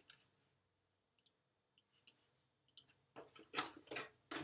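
A few faint clicks, then packaging rustling as it is handled and pulled open, loudest in the last second or so.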